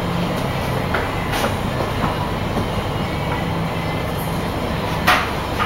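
Steady mechanical hum and rumble of room machinery, with a few faint clicks and a sharper knock about five seconds in.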